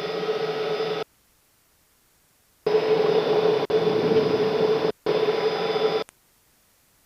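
Cessna 210 Centurion's engine and propeller at takeoff power on the takeoff roll, heard through the headset intercom as a steady drone. It cuts in and out abruptly three times, with dead silence between, as the intercom's voice-activated microphone opens and closes.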